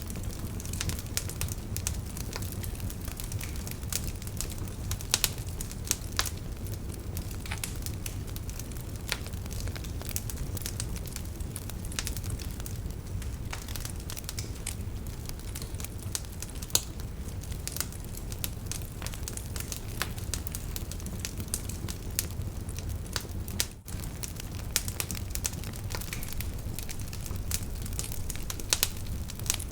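Wood fire in a fireplace crackling: frequent sharp pops and snaps over a steady low rumble of the flames.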